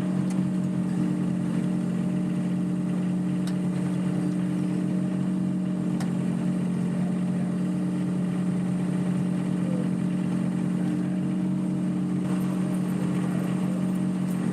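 A vehicle engine running steadily at an unchanging speed, a constant low hum.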